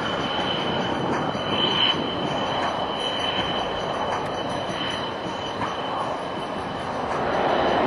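JF-17 Thunder's single RD-93 turbofan at high power on the takeoff roll: a steady jet roar with a thin high whine held throughout.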